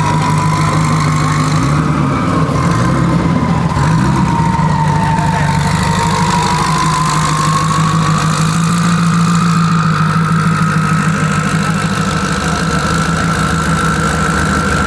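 Turbocharged Ford F-150 race truck engine idling steadily, with a thin whine that slowly rises in pitch over the last several seconds.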